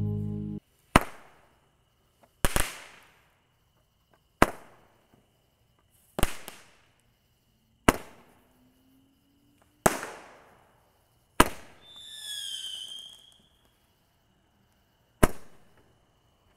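Handheld Roman candle firing shot after shot: eight sharp pops, each trailing off in a brief hiss, about two seconds apart with a longer gap near the end. A short chirping whistle sounds between the last shots.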